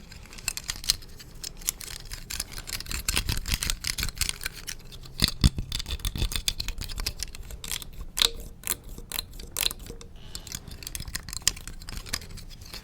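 Close-miked ASMR tapping: a quick, irregular run of small, sharp taps and clicks on an object.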